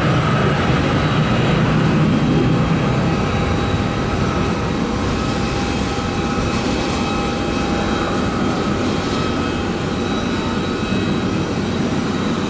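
Bombardier BD100 Challenger business jet's twin Honeywell HTF7000 turbofans at takeoff power: a steady jet roar with several high steady whining tones on top, easing a little after about four seconds.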